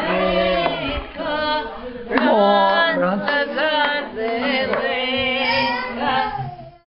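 A small group of voices, women's among them, singing a Serbian folk song together without accompaniment; the singing cuts off abruptly near the end.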